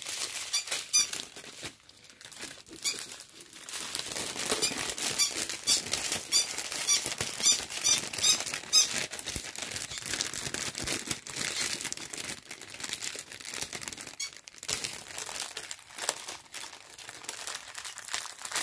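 Plastic wrapping being handled, rustling throughout, with runs of short high squeaks during the first half.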